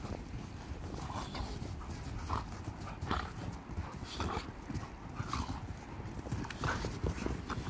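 Two dogs play-fighting in snow: short growls at irregular intervals, with scuffling and thuds of their bodies and paws in the snow.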